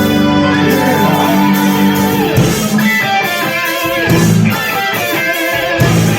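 A live rock band playing, with guitar to the fore. Held notes ring over the bass, and the low end drops out briefly twice around the middle.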